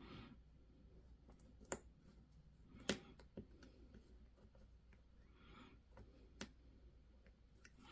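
Faint, sparse clicks and small scrapes of a hobby knife cutting nubs off hard 3D-printed plastic parts: about six sharp ticks spread out, the loudest about three seconds in.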